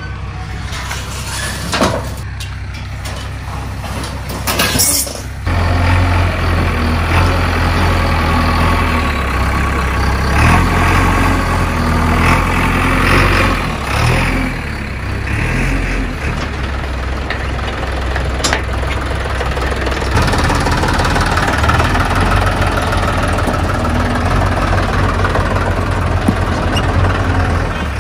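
JCB 3DX backhoe loader's diesel engine running as the machine drives up close, growing louder about five seconds in. A few sharp metallic knocks in the first few seconds come from the sheet-metal gate being swung open.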